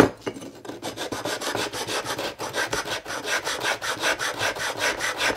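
The cut edge of a ceramic tile rubbed back and forth on an abrasive block, quick scraping strokes several times a second. It is smoothing a rough snapped edge.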